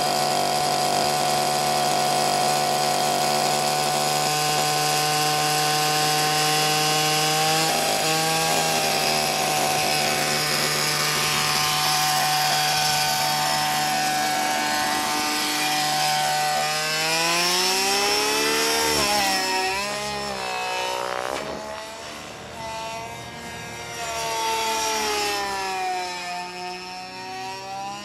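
Radio-controlled gas helicopter with an HWC/Zenoah 29cc two-stroke gasoline engine running with its rotors spinning, holding a steady pitch at first. About 17 s in, the pitch starts sweeping up and down and the sound grows fainter as it climbs away.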